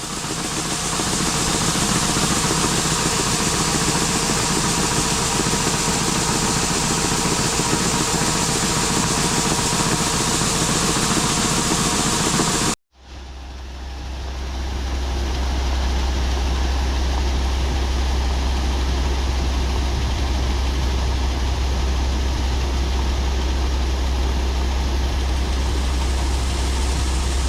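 Farm machinery engine running steadily, in two separate takes: a cut about 13 seconds in, after which a deeper, steady drone with a strong low hum fades up.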